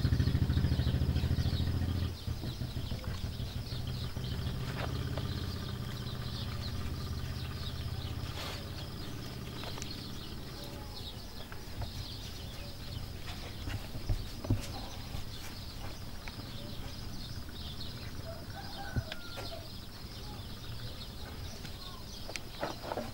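A motorcycle engine going past, loud at first, dropping sharply about two seconds in and dying away over the next several seconds. After that, faint chicken clucks and bird chirps, with a few sharp knocks and clicks.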